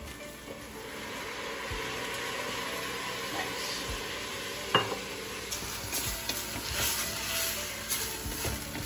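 White wine sizzling in a hot pot of toasting arborio rice and vegetables, a steady hiss that builds over the first second or two as the wine starts to boil off. A single sharp clink about five seconds in, then a wooden spoon stirring and scraping through the rice near the end.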